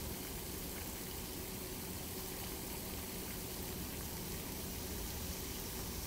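Steady rushing splash of a pond fountain's running water, with a faint steady hum underneath.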